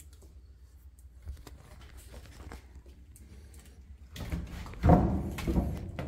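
Faint room rumble with small clicks, then about four seconds in a run of knocks and scraping against wood, the loudest bump coming about a second later.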